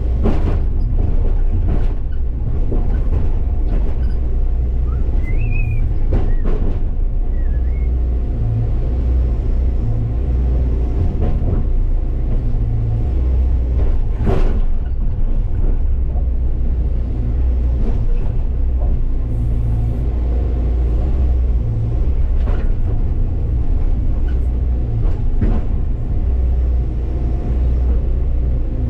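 Hyundai excavator's diesel engine running steadily, heard from the cab, swelling and easing in stretches as the hydraulics take load while the bucket works rocks. A few sharp knocks of rock against the steel bucket, the loudest about halfway through.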